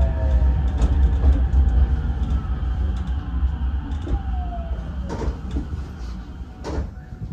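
Ichibata Electric Railway 7000-series train slowing down: wheel and running rumble fades while the traction motors' whine glides down in pitch, with a few sharp knocks near the end.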